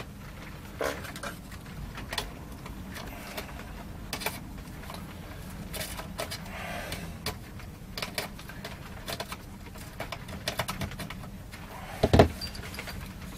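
Small metallic clicks and clinks of hand tools working at a nut inside a steel amplifier chassis, over a steady low hum, with one louder clatter near the end.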